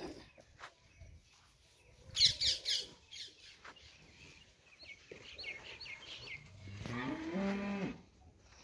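A Banni buffalo mooing once near the end: one call of about a second and a half that rises in pitch and then holds. About two seconds in, the loudest sound is a quick series of sharp high chirps, with fainter chirps a few seconds later.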